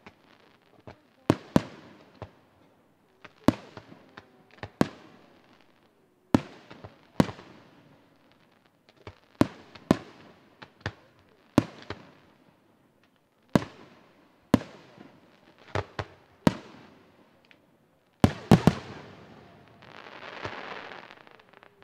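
Aerial firework shells bursting one after another, sharp echoing bangs about one to two a second. Near the end comes a cluster of the loudest bangs, followed by a brief hissing crackle of glittering stars.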